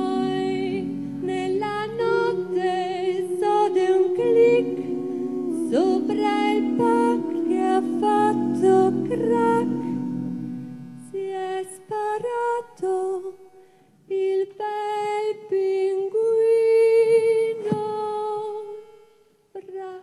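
A cappella vocal group singing: a woman's lead melody, with vibrato on the held notes, over hummed low chords from the other voices. About halfway through the backing chords stop and the lead voice carries on alone in short phrases, fading out near the end.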